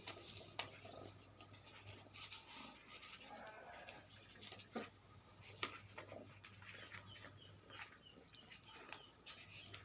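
Quiet room with a low hum, a few faint sharp taps, and faint animal calls in the background.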